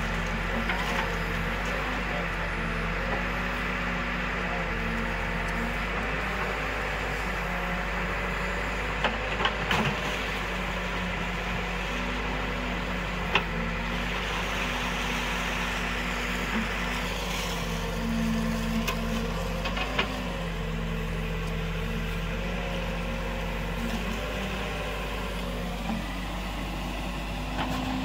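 Escorts Digmax backhoe loader's diesel engine running while its backhoe arm digs, the engine note stepping up and down in pitch as the hydraulics take load. A few sharp knocks sound about a third of the way in and again around the middle.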